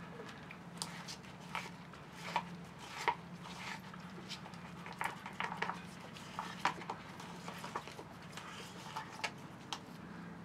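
Wooden stir stick scraping and tapping in a thin plastic cup as thick epoxy and teak-dust paste is mixed, giving irregular light clicks and scrapes.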